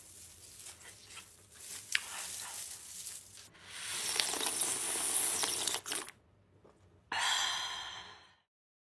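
Close-miked mukbang eating sounds: crackly crunching and chewing on a fried breaded stick, then a loud, drawn-out slurp of broth drunk straight from a bowl. A second short slurp comes near the end, and the sound then cuts off abruptly.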